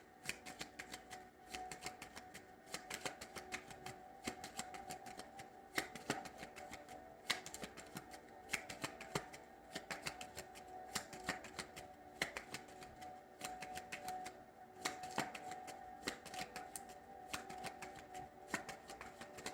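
A deck of cards being shuffled by hand: a quick, irregular run of soft card clicks and flicks throughout, with a faint steady tone beneath.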